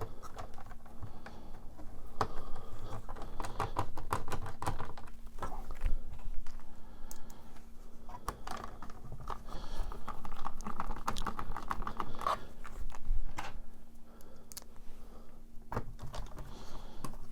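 Irregular clicking and light rattling of small screws and plastic parts, as screws are set and driven by hand into a circuit board on a plastic instrument-cluster housing, over a faint steady hum.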